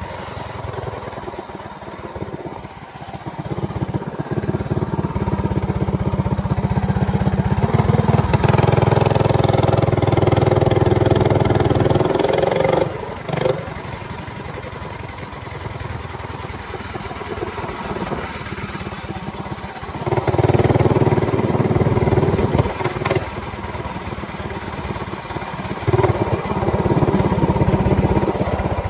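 Minibike's Predator 224 single-cylinder engine running while riding, the revs and loudness rising and falling: a long pull of hard throttle about four seconds in, cut off suddenly about halfway through, then two shorter pulls near the end.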